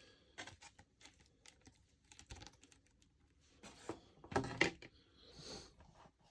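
Small scattered plastic clicks and taps from an action figure and its parts being handled and posed. About four and a half seconds in, a short murmur from a person's voice.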